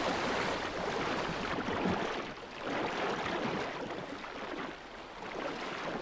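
Sea water splashing and rushing as a pod of dolphins surges through the surface. The sound swells and eases a couple of times.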